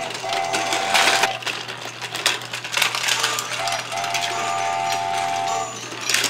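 Battery-powered VTech Go! Go! Smart Wheels toy train running along its plastic track, its small motor whirring and clattering. Its speaker sounds a held electronic tone twice, a short one near the start and a longer one past the middle.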